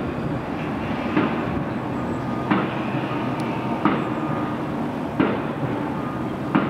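Steady rumble of a train passing on an elevated viaduct, with a heavy knock repeating evenly about every 1.3 seconds from the road construction works, five times.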